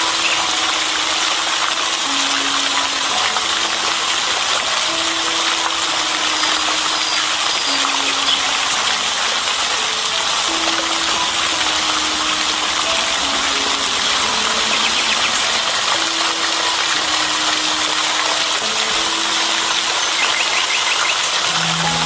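Small pond fountain jetting water that falls back and splashes into the pond: a steady, continuous rush of splashing water. Soft, slow background music with held notes runs underneath.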